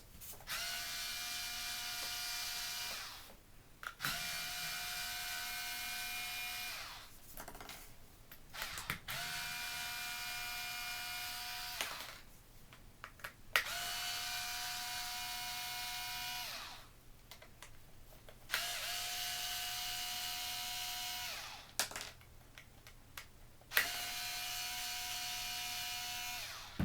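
Electric screwdriver running in six separate runs of about three seconds each, a steady whine every time, backing out the six Torx T10 housing screws of a cordless ratchet. Small clicks come in the gaps between runs.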